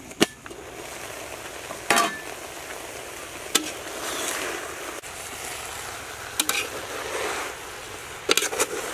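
Aluminium cooking pot: the lid is lifted off with a clank, then a metal spoon stirs and scrapes through cooked bananas and grated coconut, clinking against the pot's side several times. A steady hiss runs underneath.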